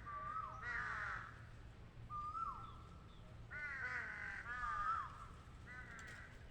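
A bird calling repeatedly: about six bouts of short, arching calls that rise and fall away, some single and some in quick runs.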